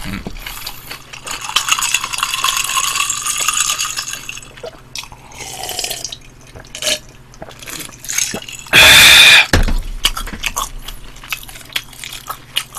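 Cola poured from a plastic bottle into a glass, the pitch rising as the glass fills, followed by small clinks of glass and dishes. About nine seconds in comes a brief, very loud noise close to the microphone, the loudest thing here.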